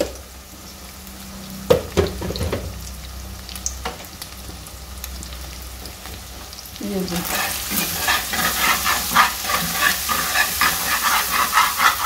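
Metal slotted spoon stirring and scraping through scrambled eggs, onion and green chillies frying in an aluminium pan, with sizzling. A few separate clicks at first, then quick continuous scraping from about seven seconds in.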